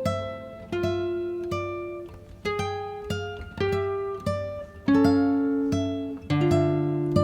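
Background music: plucked acoustic guitar picking out notes, each struck and left to ring away.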